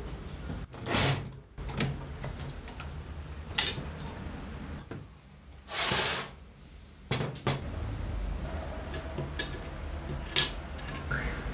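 Rusty cast-metal parts of an old Makita electric groove cutter and its base being handled on a workbench: sharp metal clanks and knocks, the loudest about a third of the way in and near the end, with brief sliding noises in between.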